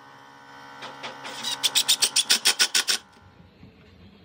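Cordless impact driver hammering a screw into a pine block: a rapid, evenly pulsing rattle that builds up about a second in and stops abruptly about three seconds in.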